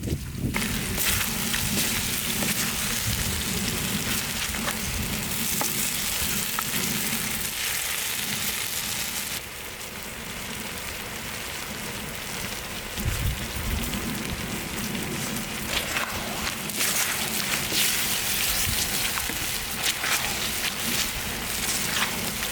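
Food sizzling in a hot pan as it stir-fries: a steady crackling hiss with small pops, which drops suddenly about nine seconds in and comes back stronger later.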